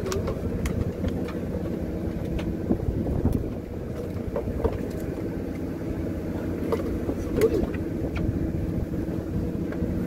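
Fishing boat's engine running steadily with a low hum, with a few light clicks and knocks scattered through it.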